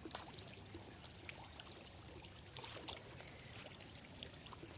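Faint, steady trickle of running water, with a few small ticks.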